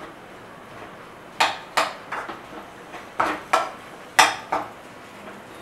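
Metal spoon knocking against the side of a kadhai while mixing spiced potato filling: about eight sharp clanks with a short ring, in uneven groups.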